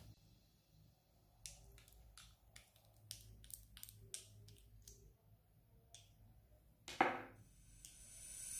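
Faint clicks and taps of a plastic liquid lipstick tube being handled and uncapped. About seven seconds in comes a short, louder swish.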